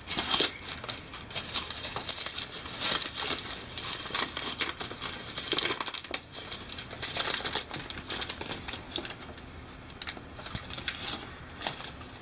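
Crumpled paper crinkling in the hands as it is pulled open and unfolded, an irregular run of small crackles.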